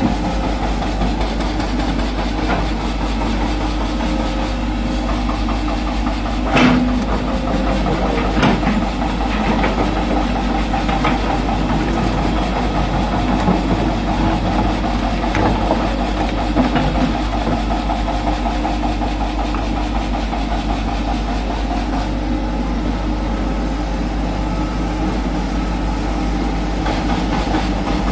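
Hitachi Zaxis 210F excavator's diesel engine running steadily as it digs in a pile of broken rock, with a few sharp clanks of the bucket on stone, the loudest about six and a half seconds in.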